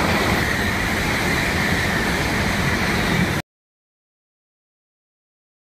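Shinkansen train of coupled E3- and E2-series sets passing at high speed, a steady loud rush of wheel, rail and air noise. The sound cuts off abruptly about three and a half seconds in.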